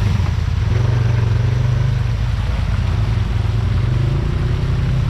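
Off-road vehicle's engine running steadily at low revs as it crawls along the trail, a continuous low drone.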